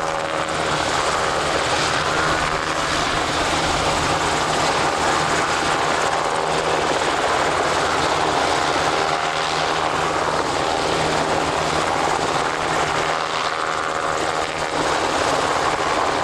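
UH-60J rescue helicopter hovering low: steady, loud rotor and twin-turbine engine noise.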